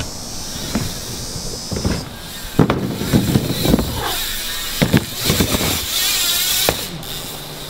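BMX bikes riding wooden ramps and a dirt jump: tyres rolling, with a steady hiss and about eight sharp knocks and thumps of wheels striking the ramps.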